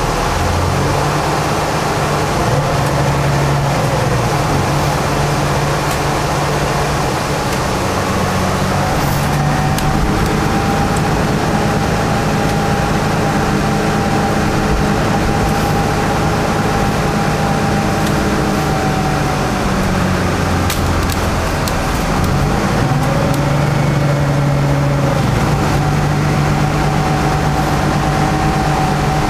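Lower-deck interior sound of a 2008 Alexander Dennis Enviro 500 double-decker bus on the move: its diesel engine and drivetrain running over road noise. The engine pitch drops about two-thirds of the way through, then climbs again, and a steady whine holds through the middle.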